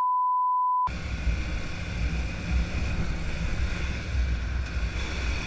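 A steady high censor beep for about the first second, then a motorcycle engine running while riding, with wind rushing over the helmet-camera microphone.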